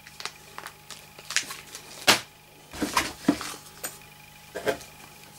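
Small plastic parts bag being handled and opened: irregular crinkles and light clicks, with the sharpest crackle about two seconds in and a few more around three seconds and near the end.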